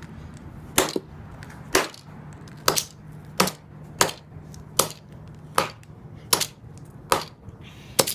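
Sledgehammer striking an old Apple Watch case over and over, about ten sharp blows a little under a second apart, the strikes that punch a hole in the case.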